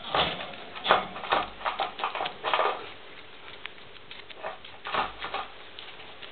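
Guinea pig eating lettuce, with crisp crunching bites and leaf rustle in a quick run through the first three seconds, then a few more bites about four and a half to five and a half seconds in.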